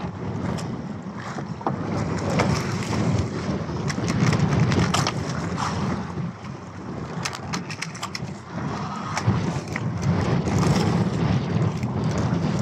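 Wind buffeting the microphone over sea noise on a small outrigger fishing boat, with scattered clicks and knocks as a handline is hauled in hand over hand.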